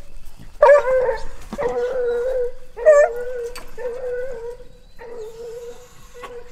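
Hog-hunting dog howling and whining in long drawn-out cries, two loud ones starting about a second and three seconds in, fading out near the end.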